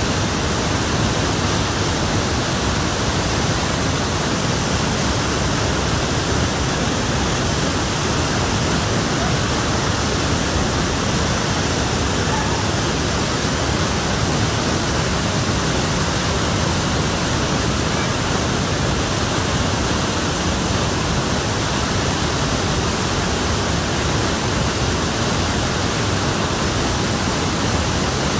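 Steady, unbroken rushing of a waterfall and a flooded river in monsoon spate, churning white water.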